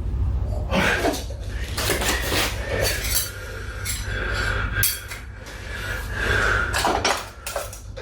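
Small metal motorcycle compensator parts clinking and rattling as they are handled, in irregular knocks, over a steady low hum.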